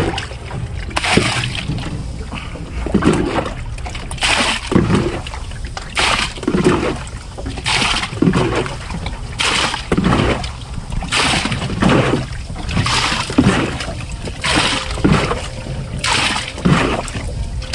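Water being bailed out of a small metal boat with a cut-off plastic jug: a scoop in the bottom of the hull, then a splash as it is thrown overboard, repeated about ten times at a steady pace. The water has leaked in through a hole in the hull.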